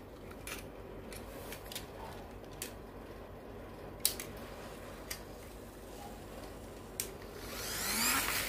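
Plastic pull-back toy cars' spring motors being wound by dragging them back, a whirring that swells near the end and repeats with each pull. Before it, a few faint clicks from the plastic toys being handled.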